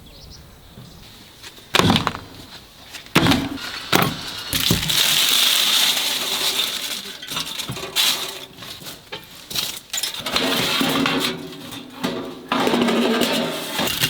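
Sharp hard knocks and clattering of objects being handled, with stretches of rustling between them.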